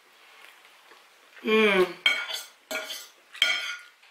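A short hummed "mmm" with a closed mouth while chewing, then a metal fork clinking and scraping on a ceramic plate three times as noodles are gathered up.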